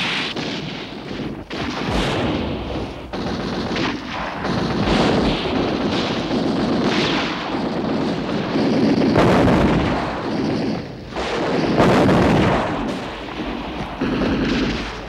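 Battle noise of gunfire and artillery explosions, dense and continuous, with several louder blasts standing out.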